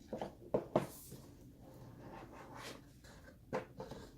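A cardboard product box and its contents being handled while unpacking. There are a few sharp taps and knocks in the first second, softer handling noise after them, and two more light knocks near the end.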